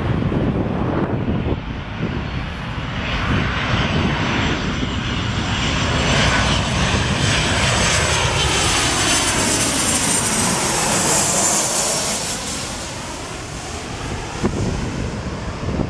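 Ryanair Boeing 737-800 jet airliner passing low overhead on final approach. The engines' high whine builds and peaks as it goes over, about eleven seconds in, then eases off, over a steady low rumble.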